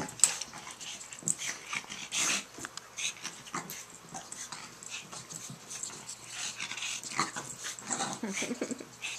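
A puppy and a ferret play-fighting on a carpet: quick scuffling and short, scattered dog noises, busiest near the end.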